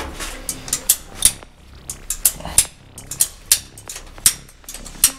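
Orange hand pipe shears being squeezed through a polypropylene riser pipe, making a series of sharp clicks, about two or three a second.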